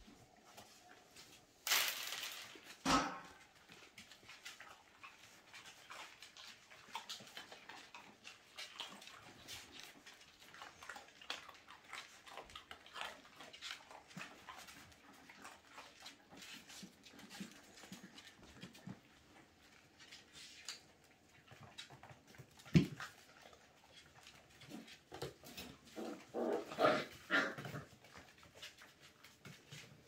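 Whippets and their puppies moving about on a tiled floor, claws ticking and pattering, with a knock about two seconds in and a single sharp thump later. A run of short dog whimpers and yelps comes near the end.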